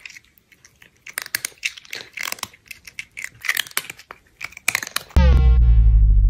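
A cat chewing noisily: a quick, irregular run of crackly clicks for about five seconds. Electronic music with a deep bass cuts in abruptly near the end.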